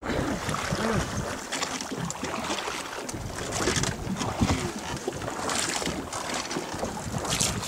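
Wind buffeting the microphone over the rush and lapping of river water around a floating boat.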